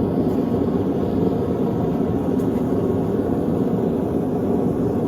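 A steady, even rushing drone of workshop equipment running, with no change in pitch or level.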